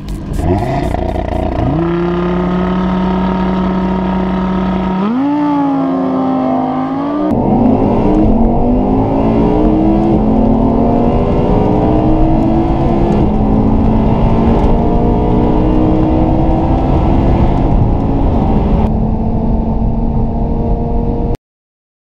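Audi R8 V10 Spyder's V10 and Audi TT RS Roadster's turbocharged five-cylinder heard together under full-throttle acceleration. The revs climb and hold for a few seconds, then both engines pull up through the gears, the pitch rising and dropping back at each upshift. The sound cuts off suddenly near the end.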